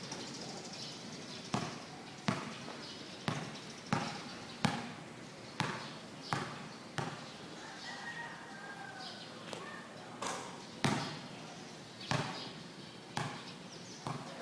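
Basketball bouncing on a hard court: about a dozen sharp thuds at uneven spacing, roughly one every half second to a second, over steady background noise.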